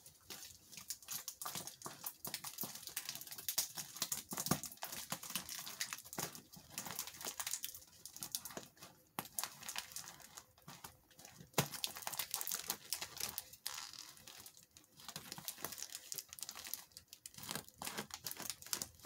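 Plastic shipping bag crinkling and tearing as it is worked open, an irregular run of rustles and sharp crackles.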